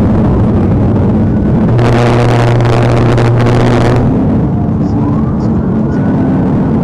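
Pursuing police car at highway speed, about 87 mph, heard from inside: steady engine, road and wind noise. About two seconds in, a louder burst of hiss over a steady hum starts suddenly and cuts off suddenly about two seconds later.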